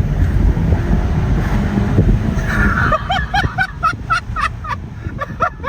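Car being driven hard, heard from inside the cabin: a loud steady rumble of engine and road noise as it speeds up. About three seconds in the rumble drops, and a quick run of short, high chirping sounds follows.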